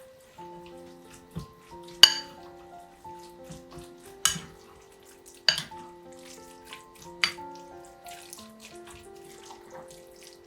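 Soft background music of held melodic notes, with kitchen clatter: four sharp clinks or knocks of dishes and utensils, the loudest about two seconds in.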